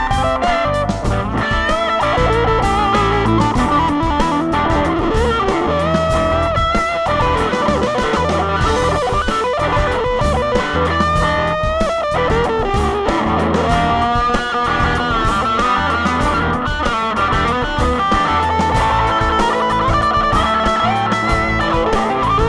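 Electric guitar played through a Marshall Origin 5, a 5-watt all-tube amp with an 8-inch speaker: a continuous lead line with string bends and slides.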